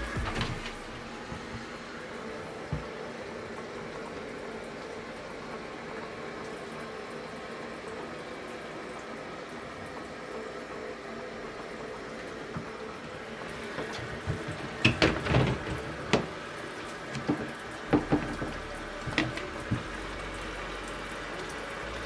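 Water running steadily from the inlet hose into the wash tub of a Giantex twin-tub portable washing machine as it fills. In the last few seconds, several sharp plastic knocks and clatters as the tub lid is handled.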